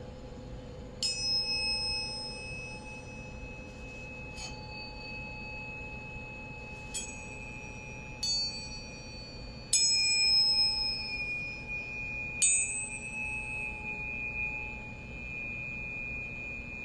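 Small metal bell-like chimes struck six times at uneven intervals, each strike ringing brightly and sustaining into the next, over steady lower held tones. They are overtone instruments played in a sound-healing meditation.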